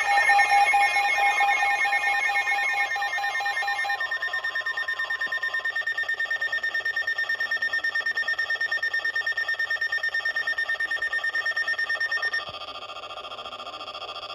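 Emergency alert tones: steady electronic alarm tones at several pitches, overlapping and pulsing rapidly. About twelve seconds in they change to a different, quieter set of tones.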